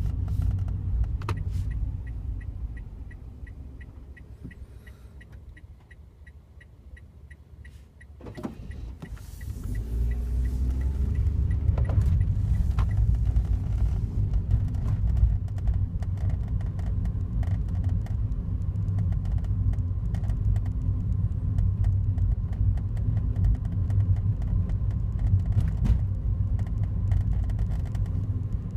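Low rumble from a Daihatsu Wake that fades away over the first several seconds while a fast, even high-pitched ticking runs, then a sharp knock about eight seconds in; the rumble builds back up and runs steadily after that. The car is being recorded for an unexplained noise that appears every morning.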